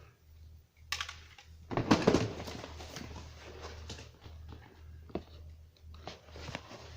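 Packaging being handled while a pet water blower kit is unpacked from its box: rustling and crinkling with scattered clicks and knocks, loudest about one and two seconds in.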